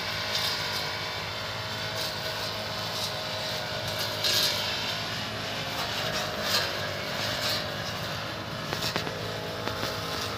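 Brush cutter's small engine running steadily while cutting grass, with a couple of brief louder swishes as the cutting head sweeps through the grass.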